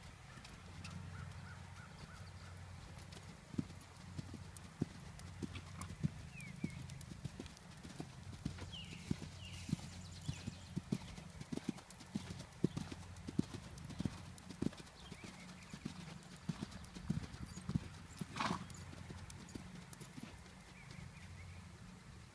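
Hoofbeats of a Friesian horse cantering on the sand footing of a riding arena, dull irregular thuds that thin out near the end as the horse comes to a halt. A short, louder sound comes about eighteen seconds in.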